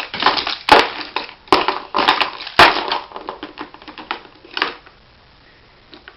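A baby shaking and banging a toy: irregular bursts of rattling and clattering with a few sharp knocks, stopping near the end.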